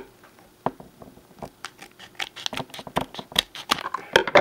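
A foil trading-card booster pack being opened by hand: irregular crinkling with sharp crackles and clicks from the wrapper.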